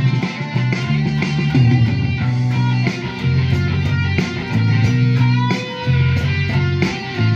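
Rock music led by a Les Paul-style electric guitar, with sustained low notes and a steady beat underneath.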